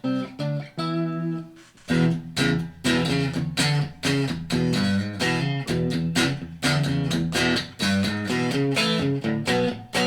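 Electric guitar played through a Blackstar ID:Core 40 combo amp. A few single notes ring out at first, then about two seconds in a quick, continuous run of picked notes follows.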